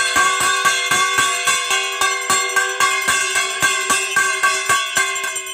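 Brass puja hand bell (ghanta) rung rapidly and steadily during worship, several strikes a second, its metallic tones ringing on between strokes.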